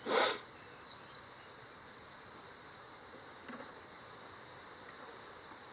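Steady high-pitched insect chirring, with a short, loud scraping hiss right at the start.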